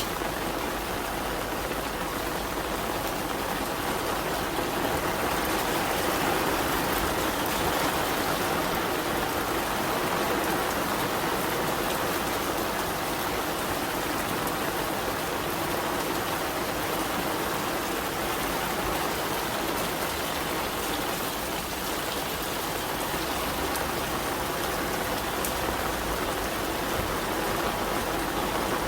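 Steady rain falling and pattering on surfaces, an even unbroken rush.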